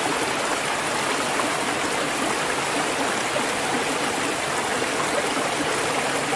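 Rocky stream flowing over boulders: a steady, even rush of water.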